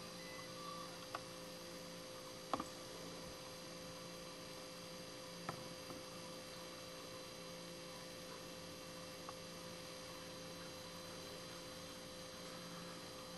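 Steady electrical mains hum with a few light clicks of glassware being handled, the loudest about two and a half seconds in.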